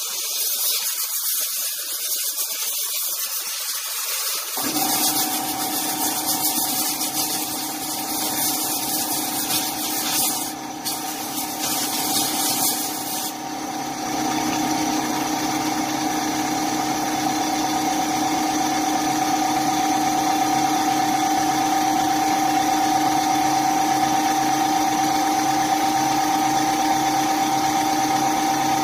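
A loud, even hiss for about the first thirteen seconds. A steady machine hum starts about five seconds in and runs on unchanged after the hiss stops.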